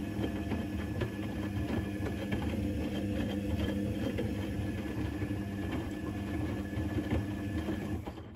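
Electrolux EWC1050 front-loading washing machine tumbling its drum during the 90°C cotton main wash while the water heats. The motor hums steadily with a thin whine, over the clatter and slosh of wet towels in the drum, then stops abruptly near the end as the drum pauses.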